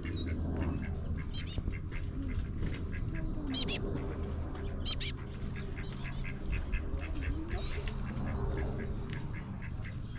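Mixed wetland bird chorus: many small birds chirping in quick, high calls, two louder chirps standing out, over ducks quacking.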